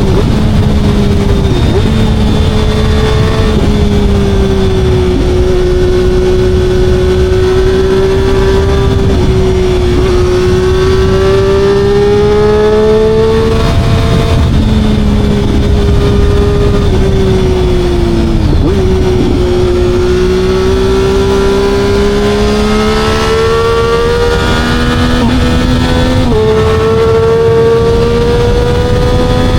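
Motorcycle engine running under way, its note slowly climbing and then dropping sharply every few seconds as it changes gear, with heavy wind rumble on the microphone.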